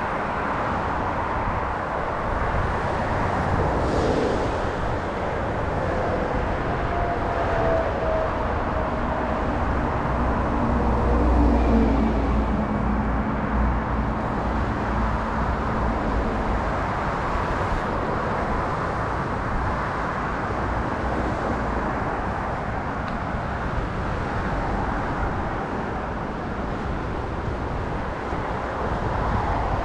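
Sea waves breaking and washing over a beach of round mongdol pebbles, a steady rush of surf. A vehicle passes on the coastal road about a third of the way in, its engine note sliding down in pitch over a low rumble.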